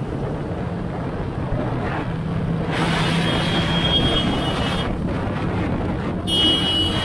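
1999 Suzuki Katana 750's inline-four engine running steadily at road speed, with wind and road noise over the bike-mounted camera. A thin high whine comes in about three seconds in and again near the end.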